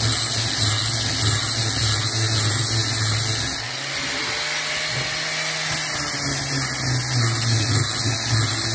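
Electric angle grinder with an abrasive disc grinding the face of a round steel plate, throwing sparks. Its steady hum lightens for about two seconds near the middle, as the disc eases off the metal, then carries on.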